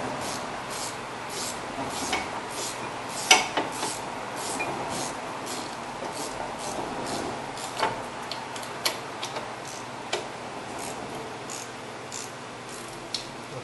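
A wrench ratcheting at about three clicks a second, with metal rubbing and a few louder knocks, as a rusty brake caliper bolt is unscrewed.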